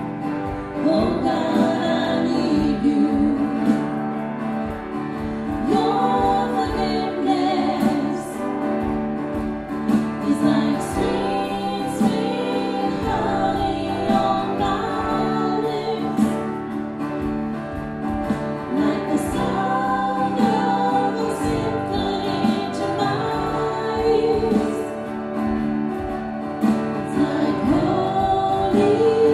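Worship song: voices singing a melody over instrumental accompaniment.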